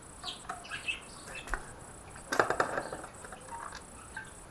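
Birds chirping in the background. About two seconds in comes a short clatter of clicks and knocks from hand-tool work on the motorcycle's exhaust bolts.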